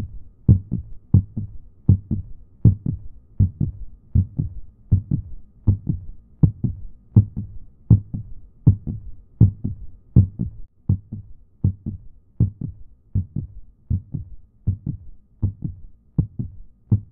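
A heartbeat: steady paired low thumps, lub-dub, at about 80 beats a minute.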